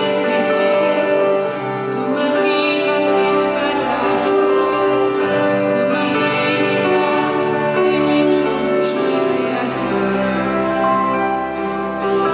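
A woman singing a slow worship song solo into a microphone over keyboard accompaniment, holding long notes. Right at the end a man's voice takes up the melody.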